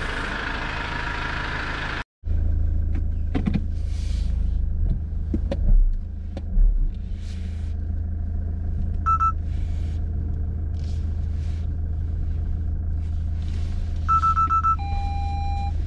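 Mazda CX-30's 1.8-litre four-cylinder Skyactiv-D diesel idling. It is first heard from outside at the front of the car; after a brief break it is heard from inside the cabin as a steady low drone. Two dull thumps come around the middle, and short electronic beeps come about 9 s in and again near the end.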